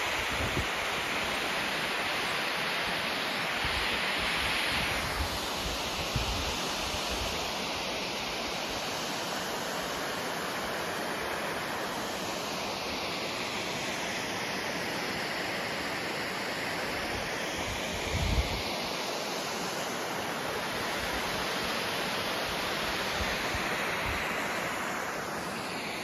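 Waterfall and stream water rushing steadily as an even hiss whose tone drifts slowly. A short low thump comes about two-thirds of the way through.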